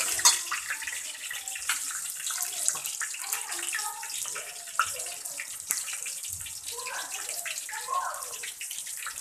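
Chopped onions frying in hot mustard oil with whole spices in a steel pot: a steady sizzle with many small crackles.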